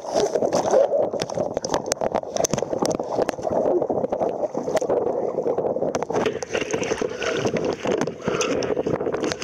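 Choppy water splashing and sloshing around a kayak, with frequent sharp knocks and splashes and wind buffeting the microphone.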